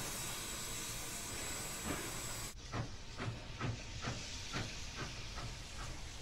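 Steam locomotive hissing steadily, then, after an abrupt cut, a regular run of exhaust chuffs about two a second that quicken slightly.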